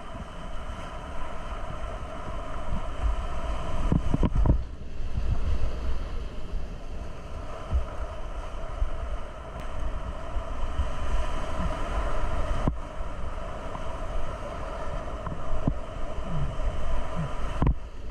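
Whitewater rapids rushing loudly around a kayak as it runs the drops, with heavy rumbling buffeting from water and wind on the microphone. Sharp thumps of water slapping come about four seconds in and near the end.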